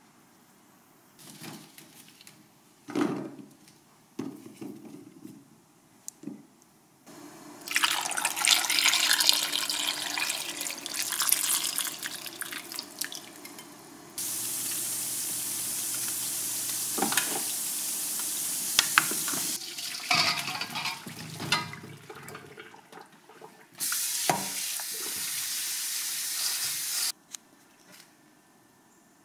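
An enamel pot being handled, with a few clinks of its lid, then water running from a tap and splashing into the pot of chestnuts in several stretches, two of them steady and cutting off abruptly.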